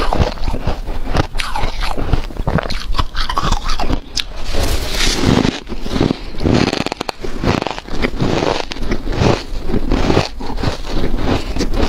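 Close-up chewing and biting of powdery freezer-frost snow ice with hard ice chunks: repeated crunchy, squeaky crunches with scraping, irregular and continuous, with a brief run of rapid crackles about seven seconds in.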